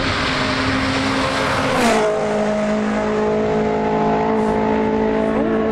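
Rally car at full throttle approaching and passing close by about two seconds in, its engine note dropping in pitch as it goes past, then holding a steady note as it pulls away.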